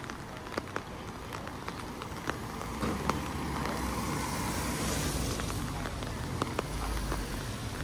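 A vehicle passes on a wet road, the hiss of its tyres swelling to a peak about five seconds in and then fading. Scattered sharp raindrop ticks sound throughout.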